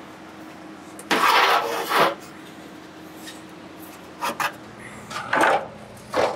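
Sheet-metal radiator and grille shell scraping and knocking as it is handled and set into place on the welder: one long scrape about a second in, then three shorter scrapes near the end.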